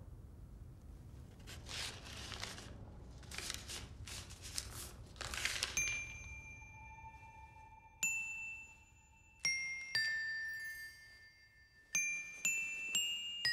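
Sparse music of bell-like chime notes, about seven, each struck singly and left to ring, beginning about six seconds in. Before the notes come four short, soft hissy swishes.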